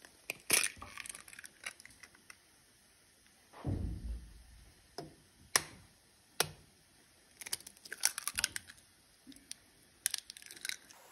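Two eggs cracked one after the other on the rim of a porcelain bowl: sharp taps and crackling of shell as each one breaks open. A dull low thump comes about four seconds in.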